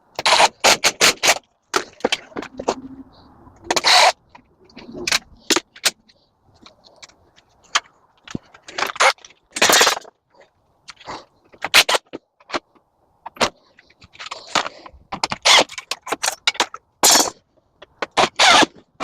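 Sharp, irregular clanks, snaps and scrapes as a screen door is pried apart by hand to strip off its aluminum window frame.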